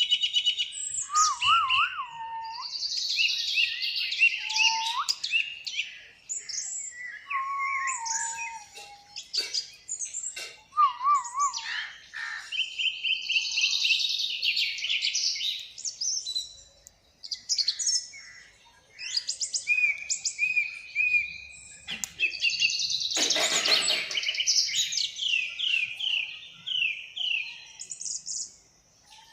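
Birds chirping and whistling in a long run of short, varied calls, with a few lower whistled glides in the first half and one loud, harsh call about three quarters of the way through.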